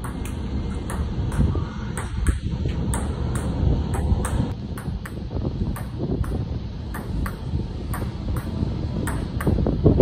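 A table tennis rally: the ball clicks sharply and repeatedly, about two hits a second, off plastic paddles and a Cornilleau outdoor table, over a steady low rumble of wind on the microphone.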